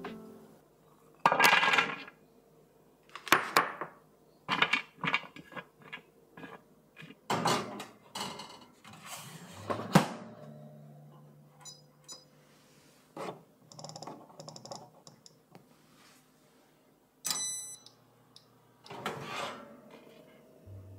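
Kitchen clatter: a string of separate knocks, clinks and taps as things are handled and set down, a dozen or so one after another, with a short bright ring near the end.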